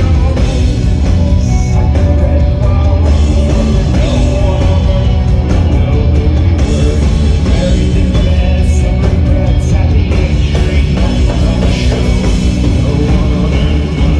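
Live rock band playing loudly, with a drum kit and amplified instruments and the singer's voice over the top.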